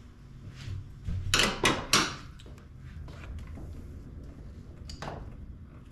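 Hard plastic scraping and rubbing as the ATV's body plastics are worked over the wiring: three loud rasps in quick succession a little over a second in, and a shorter scrape near the end, with low handling rumble underneath.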